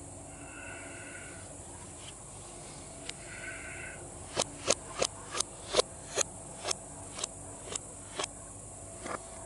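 A hammer tapping a nail into a wooden plank, played in reverse: about a dozen sharp taps, roughly two a second, starting about four seconds in, the last few fainter.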